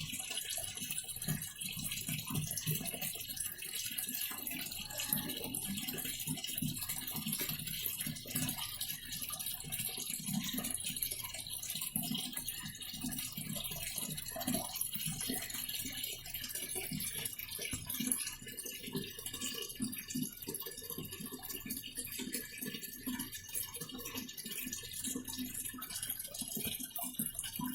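Videocon DiGi RIO PLUS fully automatic washing machine in its wash cycle: water and clothes churning in the drum with a steady irregular sloshing and rattling. The machine runs on a newly fitted universal control board.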